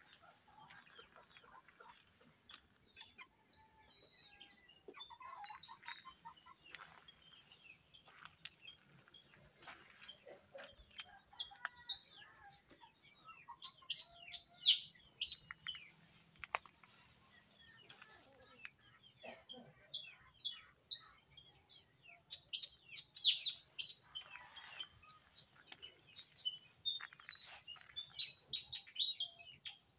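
Birds chirping outdoors: many short, high chirps in quick runs, busiest in the middle and again near the end, over a steady high-pitched tone.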